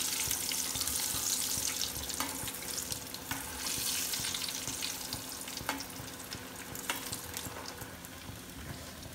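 Potato-corn-cheese tikkis deep-frying in hot oil in a wok: a steady sizzling hiss that slowly eases, with a few sharp clicks, while the tikkis, golden on one side, are turned with a slotted steel spatula.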